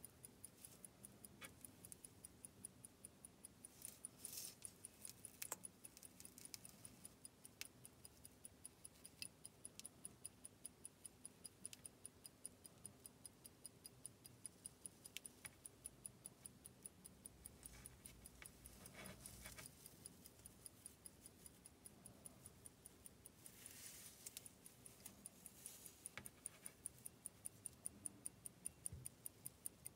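Omega pocket-watch movement in a skeleton wristwatch ticking faintly, quickly and evenly. A few soft rustles come as the watch is turned in the hand.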